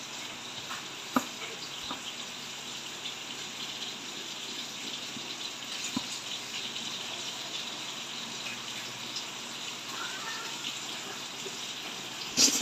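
Steady hiss of fish frying in oil in a pan, with a few sharp clicks of a kitchen knife cutting through bottle gourd slices.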